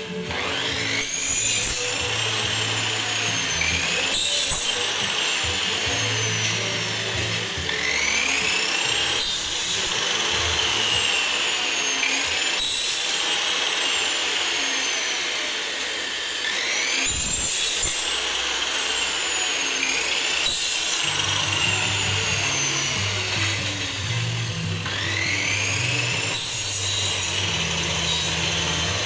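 Power tool running in repeated spells every few seconds, its pitch rising as it speeds up and swinging up and down while it works, with a few short knocks in between.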